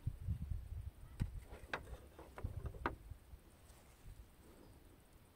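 Small plastic clicks and taps as parking-sensor cables, connectors and a sensor are handled: a handful of short clicks between about one and three seconds in, over a low buffeting rumble on the microphone that fades after about three seconds.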